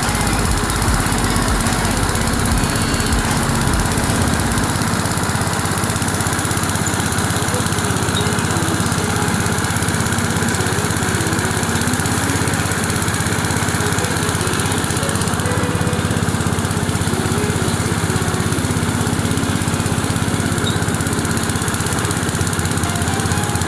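Small diesel engine running steadily, driving a homemade rice thresher. About four seconds in the deepest part of the rumble drops away.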